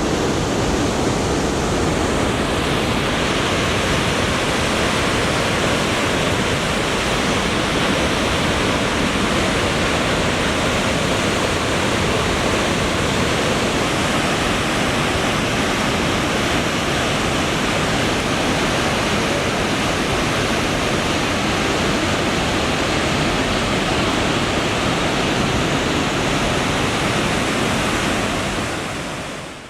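Steady, loud rush of a fast glacier-fed river or waterfall, fading out near the end.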